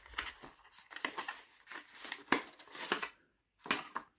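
Packaging of a Mi Smart Band 5 box being handled as its contents are lifted out: a run of short scratchy rustles and clicks, the sharpest just over two seconds in, then a single brief click near the end.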